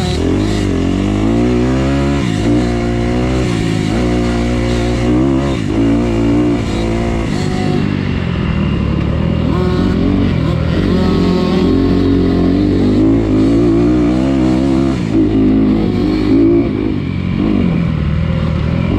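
Off-road motorcycle engine running hard along a trail, its pitch rising and falling over and over as the throttle is opened and closed and the rider shifts gears.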